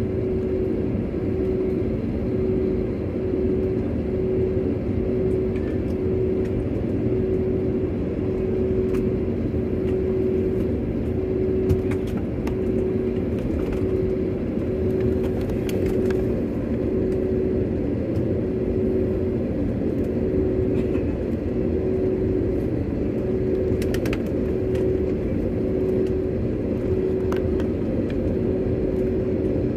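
Steady cabin noise inside a jet airliner taxiing: a low engine rumble with a constant hum that swells and fades, and a few faint clicks.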